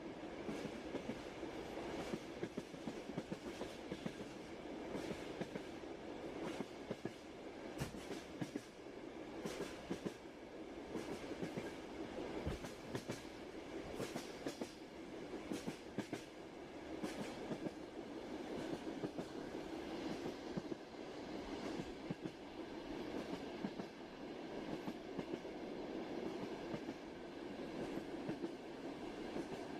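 Passenger train running at steady speed: a continuous rumble with many irregular clicks and knocks from the wheels on the rails.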